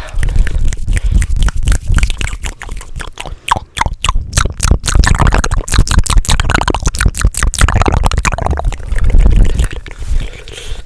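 Fast, wet ASMR mouth sounds close to the microphone: a rapid, loud stream of clicks and smacks.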